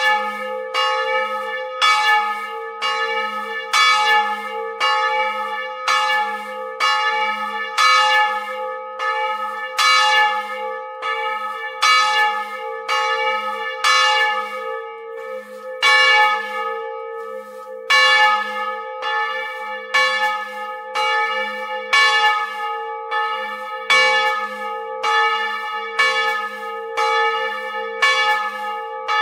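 A historic bronze church bell swinging and rung by its clapper, striking in a steady, regular rhythm. Its low hum carries on between the strokes.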